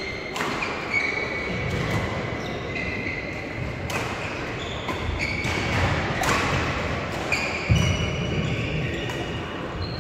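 Badminton play on a wooden or synthetic sports-hall court: sharp hits of rackets striking shuttlecocks at irregular intervals, and short high squeaks of court shoes braking on the floor. A louder thump comes about three-quarters of the way through.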